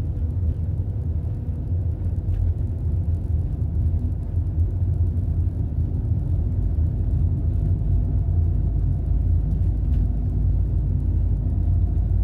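Steady low rumble of a car driving slowly along a city street, heard from inside the cabin: engine and road noise with a couple of faint ticks.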